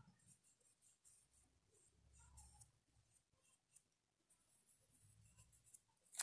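Near silence, with the faint, irregular scratching of a small paintbrush stroking paint onto cloth, and one brief louder tap near the end.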